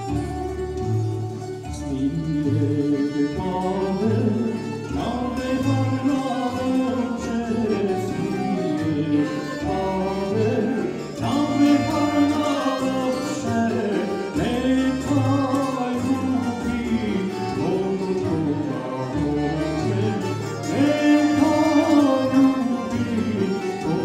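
A male singer sings a sevdah song with a tamburica string band, plucked strings over a bass note on each beat.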